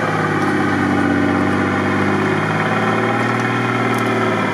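Lada Niva engine running at a steady speed while its mechanical winch pulls the car slowly up through the brush.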